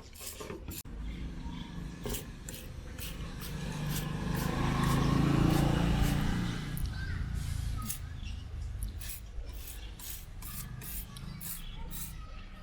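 Repeated short scrubbing strokes on a greasy air-conditioner filter screen being cleaned of oil.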